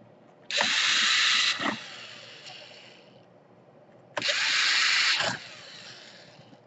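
Electric screwdriver running twice, each run lasting about a second and then winding down, as screws are driven back into the laptop's case.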